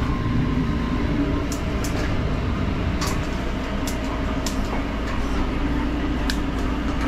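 Steady low mechanical drone from the food truck's running kitchen equipment, with a few sharp light clicks scattered through.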